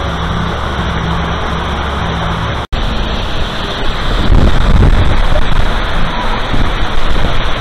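A steady low hum with a few held tones. It breaks off abruptly about two and a half seconds in, and is followed by a louder rush of water from the course's artificial rock waterfall, with uneven gusty rumbles.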